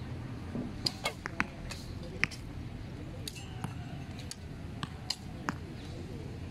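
Traditional bows being shot: a scattering of sharp snaps and clicks from bowstrings released one after another, the loudest about one, two and five seconds in, over a steady low hum.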